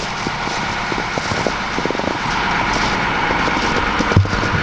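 Footsteps crunching through snow over a steady background hum, with a heavier thump near the end.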